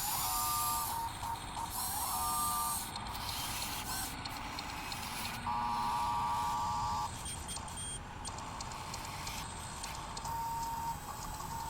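Small electric motors of radio-controlled construction models whining in short spells of a second or so, with a fast rattling pulse in the whine.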